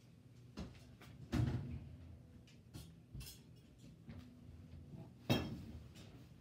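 Things being handled on a closet shelf: scattered knocks, bumps and light clatters, with a heavier thump about a second and a half in and a sharp knock a little after five seconds.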